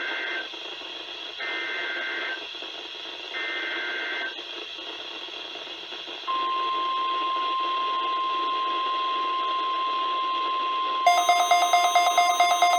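NOAA Weather Radio alert signalling: three bursts of SAME digital header data, a two-tone warble about a second long each with a second's gap between, which encode a new warning, here a snow squall warning. About six seconds in, the steady 1050 Hz warning alarm tone starts and holds. Near the end a rapidly pulsing electronic alarm beep joins it.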